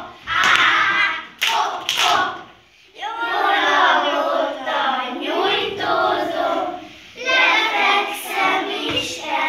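A group of young children clapping a few times over their voices, then from about three seconds in singing a song together, with a short break a little past the middle.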